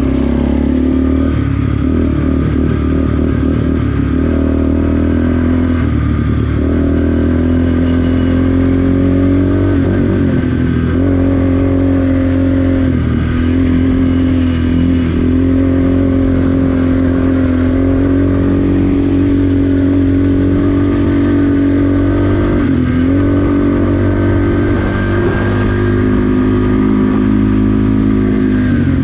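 Yamaha sport quad engine running under way, heard up close from the rider's seat. It holds a fairly steady pitch, with a few short throttle lifts where the note dips and picks back up.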